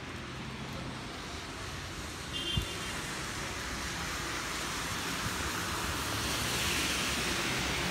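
Steady hiss of rain and car tyres on a wet city street, growing louder through the second half as traffic approaches. A brief thump about two and a half seconds in.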